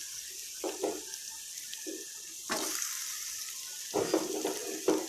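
Chopped beans, carrot and capsicum sizzling in hot oil in a steel pan, a steady hiss. A perforated steel spoon scrapes and knocks against the pan a few times as the vegetables are stirred.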